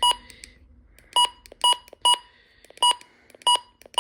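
Midland HH54VP weather radio beeping about six times at irregular intervals, short electronic beeps of one pitch, as its buttons are pressed to set the clock.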